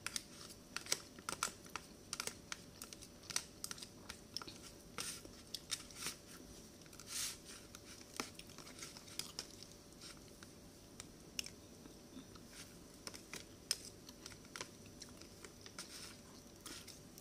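Plastic spoon and fork clicking and scraping against a plastic food container in irregular short ticks, with chewing between them.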